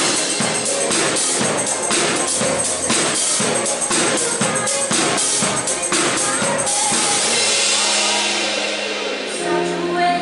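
Live band playing an upbeat pop song with a steady drum and tambourine beat of about four hits a second. About two-thirds of the way through the drums drop out, leaving held chords, and sung notes start near the end.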